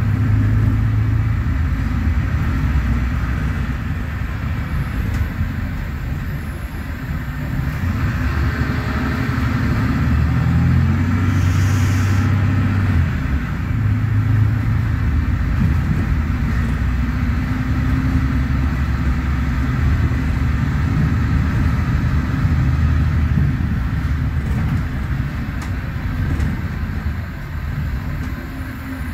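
Mercedes-Benz O500U city bus under way, heard from inside the passenger cabin: its OM936LA inline-six diesel and Voith DIWA.6 automatic transmission make a steady low rumble. The rumble eases off briefly about a quarter of the way in and again near the end.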